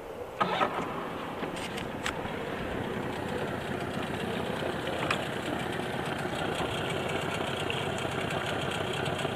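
2001 Mercury 25 hp outboard motor coming in with a sharp knock about half a second in, then running steadily.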